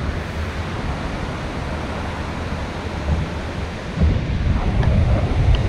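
Surf breaking on an ocean beach, with wind buffeting the microphone; the wind gusts stronger about four seconds in.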